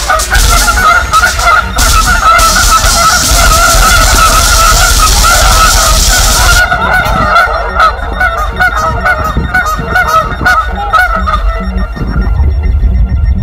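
Harsh gorenoise: a distorted, wavering midrange drone over a constant heavy low rumble, with a dense high hiss that cuts off sharply about halfway through, leaving crackling distortion.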